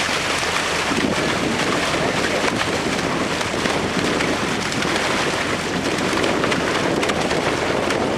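Water gushing from a fish-stocking truck's tank outlet and splashing into the lake, with fish dropping into the water: a steady, loud rush.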